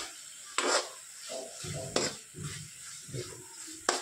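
A metal spatula stirs and scrapes onion-tomato masala frying in a kadhai, over a steady sizzle. Sharp scrapes against the pan come about three quarters of a second in, at two seconds, and near the end.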